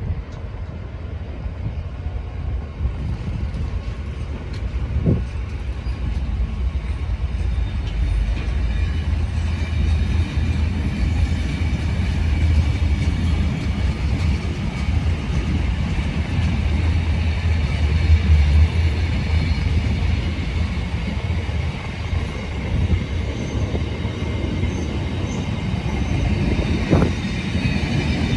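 Freight train hauled by a Class 66 diesel locomotive pulling away from a stand, a heavy low rumble building as it gathers speed, with a faint thin wheel squeal. A sharp clank comes about five seconds in and another near the end.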